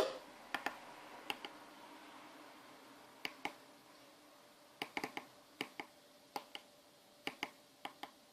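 Small tactile pushbuttons on a DSO138 oscilloscope kit clicking as they are pressed and released, mostly in quick pairs, every second or so.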